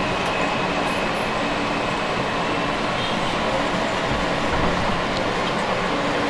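New York City Subway E train running on the tracks, heard from inside the car: a steady rumble of wheels on rail with a faint high whine that fades away after about two seconds.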